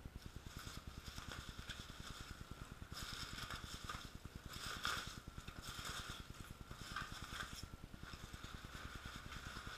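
Foam packing peanuts rustling and squeaking faintly as hands dig through them in a cardboard box, in short irregular bursts.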